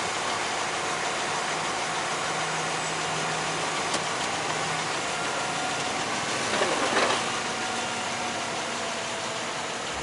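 2005 Jeep Grand Cherokee idling steadily, with a short click and then a brief creak-and-clunk from the drivetrain as the transmission is shifted into Drive. This is the fault noise that only occurs on the shift to Drive, which the owner associates with the Quadra-Drive II front differential.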